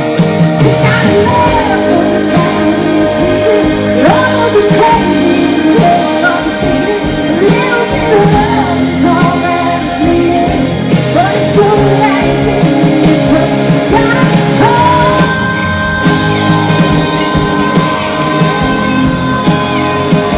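Live country-rock band playing, with drums and electric guitar under a female lead singer. In the last few seconds she holds one long high note over the band.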